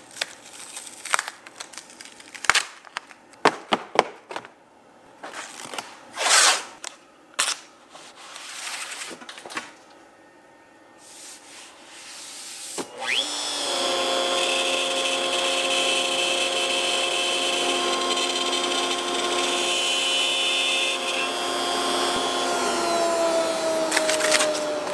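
PVC sheet being handled on a CNC router table, with scattered taps, clicks and rustles. About halfway in, the X-Carve CNC router's spindle starts abruptly and runs steadily with a high, multi-tone whine.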